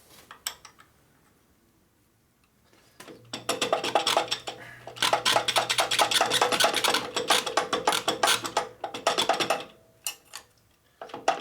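Loose metal bolts and hardware clinking and rattling in a rapid, dense clatter as someone rummages through a bin of them. The clatter starts about three seconds in and stops a few seconds before the end.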